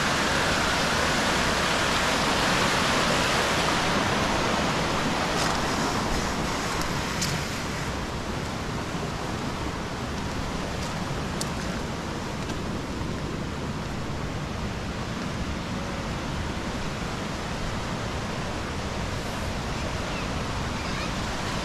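Fast, clear stream rushing over rocks in a stone-walled channel, a steady rush of water. It is a little louder in the first several seconds and then settles slightly softer.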